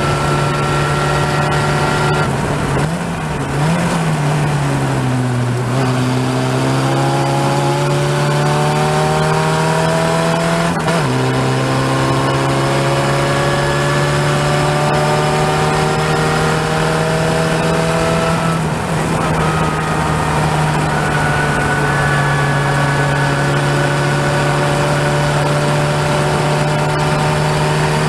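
Open-wheel race car's engine heard onboard at race pace. Its pitch drops and wavers about two to five seconds in as the car slows for a corner, then climbs steadily under acceleration, with sudden breaks about eleven and nineteen seconds in, typical of gear changes.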